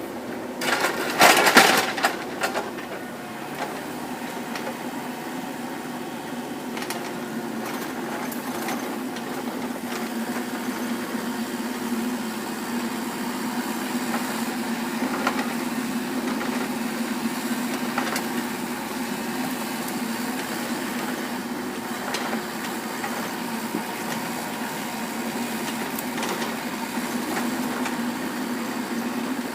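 Kubota mini excavator's diesel engine running steadily under work, with a burst of loud clattering knocks about a second or two in.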